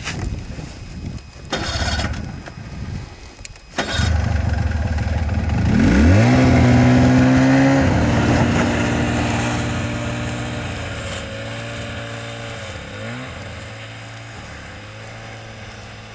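Snowmobile engine coming in suddenly, rising in pitch as it revs up, then running on and gradually fading as the machine pulls away, with a brief dip in pitch near the end. A few short gusts of wind noise come before it.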